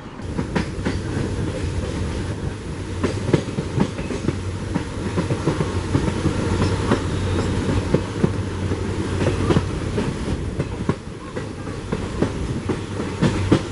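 Passenger train rolling past, its wheels clicking and clattering over the rail joints.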